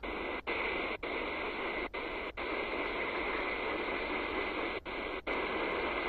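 Medium-wave AM static hiss from a small portable DSP radio's speaker as it is tuned up the band through empty channels, with a faint steady whistle under the hiss. The audio drops out for an instant each time the receiver steps to a new frequency: seven short gaps, some in quick pairs.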